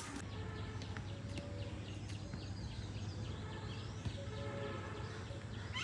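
Birds calling now and then, with one short rising whistle about halfway through, over a steady low hum of outdoor background noise.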